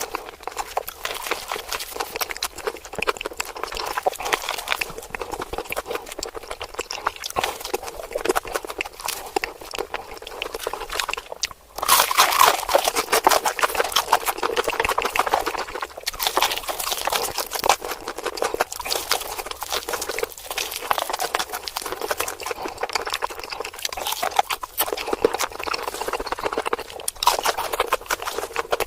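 Close-miked crunching and chewing of crispy fried chicken, a dense run of crackles and clicks. About twelve seconds in it breaks off for a moment and comes back louder.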